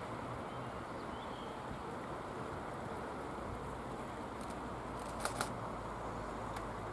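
Distant diesel railcar approaching, its low engine rumble growing in the last couple of seconds over a steady outdoor hiss. A pair of sharp clicks comes about five seconds in, with a fainter click near the end and a couple of faint high chirps earlier.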